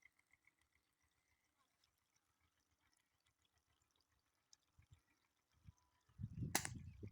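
Near silence with faint rapid ticking, then about six seconds in a second-long low rumble of handling noise with a single sharp crack in the middle of it.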